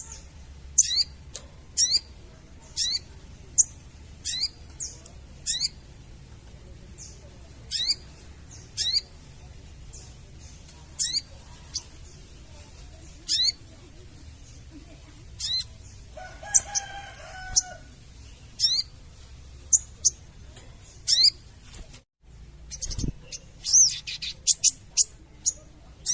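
Sogon bird calling: sharp, high chips, each a quick downward sweep, repeated about once a second and coming faster near the end. A lower, longer call is heard about two-thirds of the way in, and there is a low thump a few seconds before the end.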